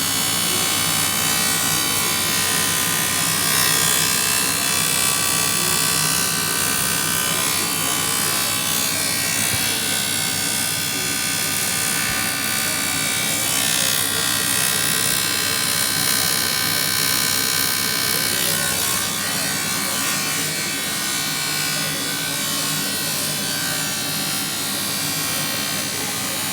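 TIG welding arc burning steadily with a continuous buzzing hum and hiss, shifting slightly a few times as the weld goes on.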